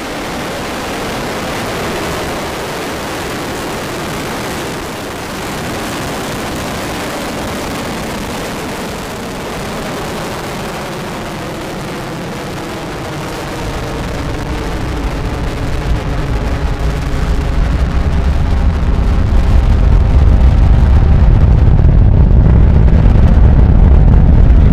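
Falcon 9's nine Merlin first-stage engines heard from a distance after liftoff: a steady hiss, then from about halfway through a deep rumble that swells and grows loud toward the end as the launch noise arrives.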